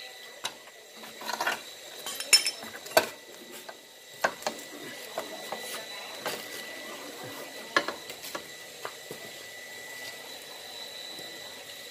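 Scattered metallic clinks and knocks, a few of them sharper, as a motorcycle's front axle is worked out and the front wheel is taken off by hand. A faint steady high tone runs underneath.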